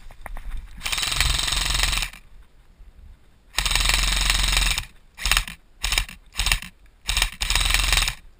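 Airsoft rifle firing on full auto: two bursts of about a second each, then a string of five short bursts near the end, each a fast, even rattle of shots.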